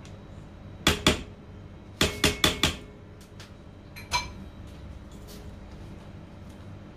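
A spatula knocking against a stainless steel mixing bowl while clearing cream cheese frosting. There are two knocks about a second in, a quick run of four about a second later, and a last one that rings briefly.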